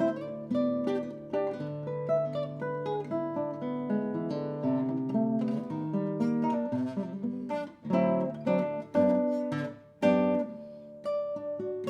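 Acoustic guitar playing a fingerpicked choro, with a melody over a moving bass line and a brief break in the notes about ten seconds in.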